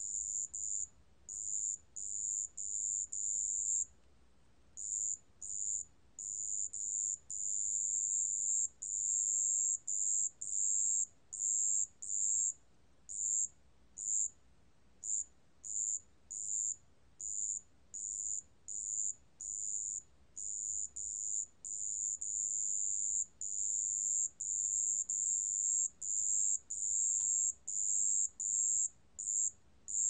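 A 습지방울벌레 (wetland bell cricket) singing, recorded at 27 °C: a high, thin trill sung in bursts from a fraction of a second to about a second and a half long, with short pauses between them.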